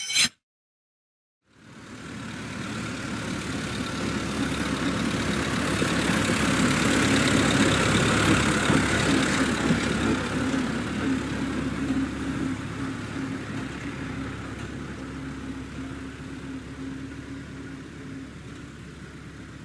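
A steady engine-like drone with a low hum, starting about a second and a half in, swelling over several seconds and then slowly fading.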